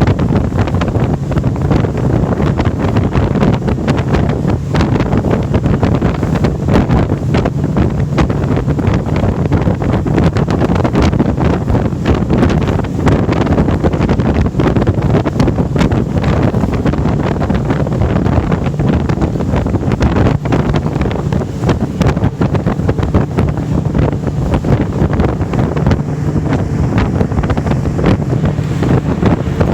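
Twin Mercury 200 hp V6 outboard engines running steadily at high RPM while the boat planes at speed, a constant engine drone under heavy wind buffeting on the microphone and rushing water.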